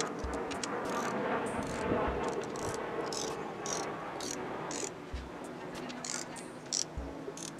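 Ratcheting torque wrench clicking in quick runs as it tightens the aftermarket connecting-rod cap bolts of a Nissan KA24DE engine to final torque, with a few dull knocks between strokes.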